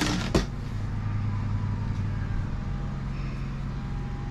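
GenMax GM10500iET tri-fuel inverter generator's 458 cc four-stroke OHV engine running steadily on propane, heard from inside the RV it powers, with a sharp click about half a second in.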